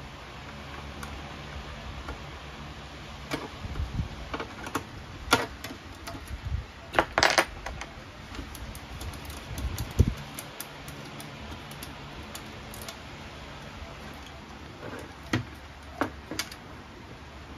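Hand tools and metal parts being handled on a wooden workbench while wire connectors are worked off the turbine's side panel: scattered clicks, clinks and light knocks, with a short rattle about seven seconds in and a sharp knock about ten seconds in.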